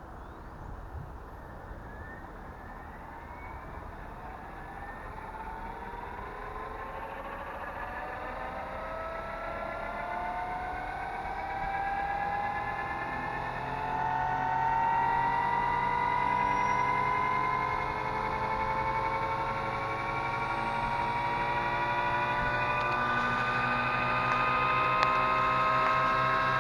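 Radio-controlled AH-6 Little Bird scale helicopter's motor and rotor spooling up. A whine climbs steadily in pitch and grows louder, and a low steady hum joins about twelve seconds in, with no added scale turbine sound.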